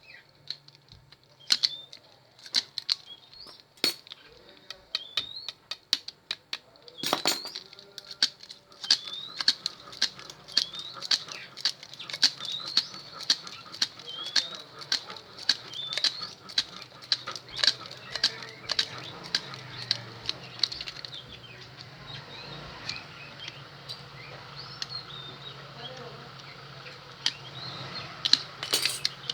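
Copper wire being wound by hand into the slots of a drill armature: a steady run of sharp clicks and short rising squeaks as the wire is pulled taut and laid around the core.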